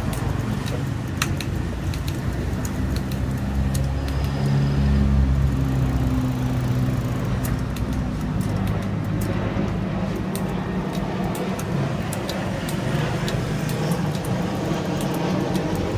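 Road traffic running steadily, with a vehicle engine growing louder and passing about three to seven seconds in, and scattered light clicks throughout.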